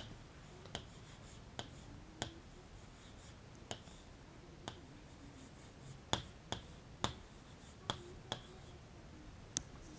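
Pen tip tapping and clicking against an interactive whiteboard screen while a word is handwritten on it: about a dozen faint, sharp clicks at irregular intervals.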